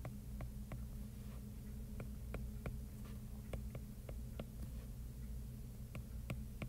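Faint, light ticks of a stylus tapping and writing on a tablet screen, coming irregularly about twice a second over a steady low hum.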